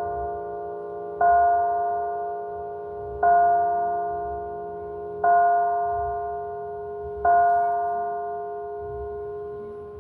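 A single church bell tolling, struck four times on the same note about two seconds apart, each stroke ringing on with a long decay and a steady lower hum beneath; after the fourth stroke, about seven seconds in, the ringing dies away.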